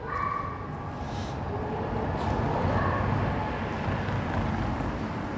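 City street ambience with a motor vehicle passing: a low rumble that swells about two seconds in and then eases off.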